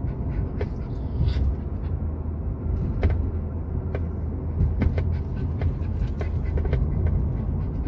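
Steady low rumble of road and engine noise inside the cabin of a moving car, with a few faint clicks.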